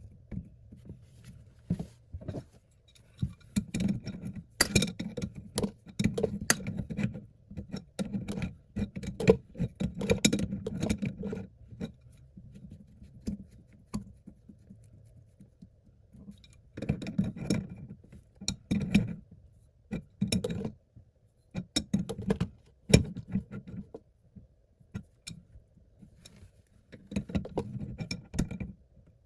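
Adjustable wrench and hands working the toilet supply line's coupling nut onto the new fill valve's threaded shank: irregular clicks, clinks and scrapes of metal on plastic, coming in clusters with short pauses between.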